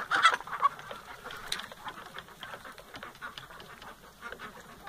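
Mixed flock of chickens and khaki Campbell ducks at the feed dishes: hens clucking and ducks quacking in an irregular chorus of short calls, with the loudest call right at the start.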